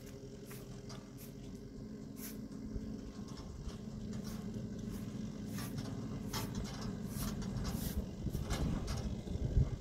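Zamyad pickup truck's engine running at low speed as it creeps down a rocky dirt track, growing steadily louder as it comes closer, with scattered sharp clicks.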